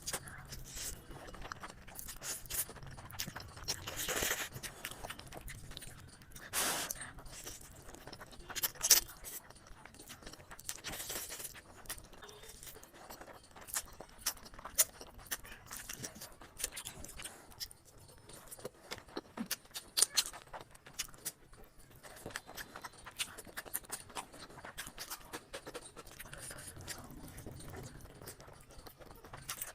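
Close-miked eating of biryani: a continual run of small chewing and mouth clicks, with louder noisy sounds now and then.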